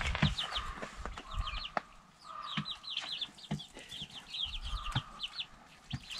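Young white chickens, about six weeks old, peeping and clucking in quick runs of short high notes, with a few scattered light knocks.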